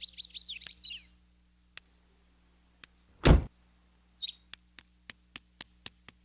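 Bird chirps in the first second, then a car door shuts with a single loud thump about three seconds in. Light ticking at about four ticks a second follows near the end.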